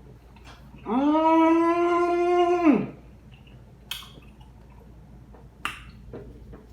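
One long, steady, pitched voice sound held for about two seconds, sliding up at the start and dropping away at the end, followed by a couple of faint clicks.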